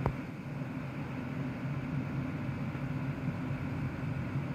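Steady low hum with a faint hiss, and a single sharp click right at the start.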